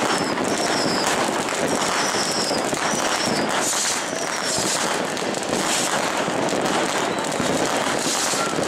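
Many consumer fireworks going off at once: a dense, continuous crackle of firecrackers and bangs, with several short high whistles in the first few seconds.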